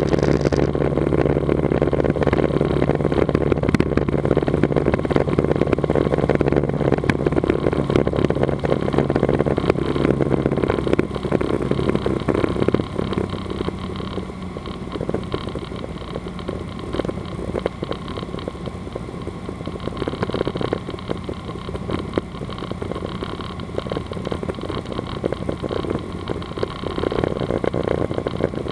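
Cessna 182RG's six-cylinder Lycoming engine and propeller droning steadily, heard inside the cockpit with airflow noise. About twelve seconds in the engine note drops and gets quieter as power is reduced for the descent.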